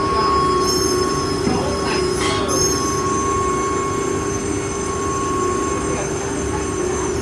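CNC router with automatic tool changer running: a loud, steady machine noise with a constant whine, and a higher-pitched whine coming in about a second in and holding.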